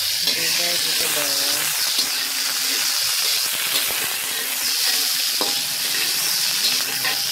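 Food sizzling in hot oil in a pan, a steady frying hiss with a few light clicks from stirring.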